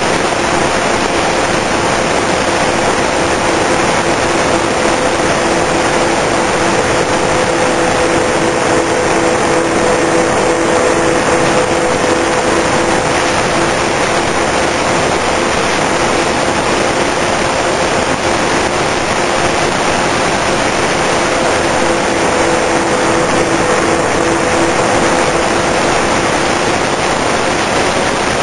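The twin brushless electric motors and propellers of a Multiplex TwinStar II RC plane running steadily, recorded by a camera on board: two steady hums at slightly different pitches, one from each motor, under a loud rush of wind and airflow over the airframe.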